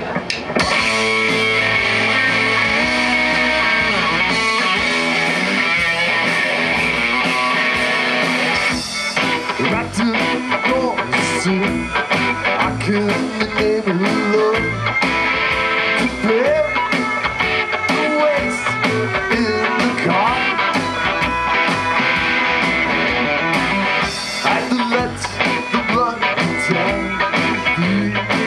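Live band playing an instrumental passage with no vocals: fiddle, electric guitar, upright double bass and drum kit.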